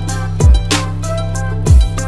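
Background music with a steady beat: two deep thumps about a second and a quarter apart over a held bass line and a melody.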